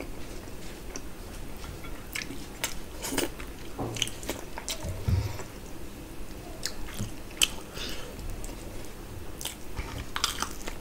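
Close-up eating sounds of a man chewing mouthfuls of mutton curry and rice, with irregular wet clicks and smacks from his mouth.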